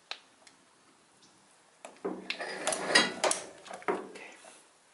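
Metal engine parts clicking and scraping as a piston, wrist pin and connecting rod are fitted together by hand. A single click at the start, then about two seconds in a quick flurry of sharp clicks, clinks and rattles lasting about two seconds.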